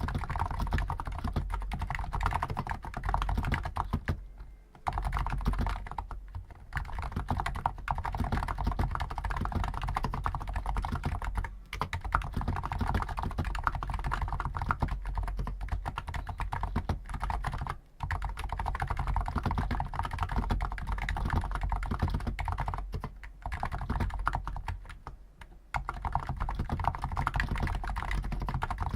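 Continuous fast typing on a Hansung GTune CHL5 XRGB electrostatic capacitive keyboard with stock 50 g keys: a dense patter of key strokes, broken by short pauses several times.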